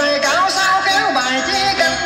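Music with a melody line that bends and wavers in pitch over accompaniment.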